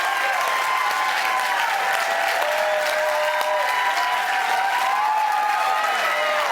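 Audience applauding and cheering at the end of a song, with calls of several voices gliding over the steady clapping.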